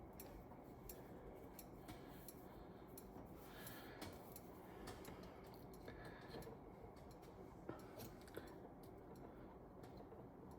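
Near silence, with faint scattered clicks and light handling noises from small parts being worked by hand.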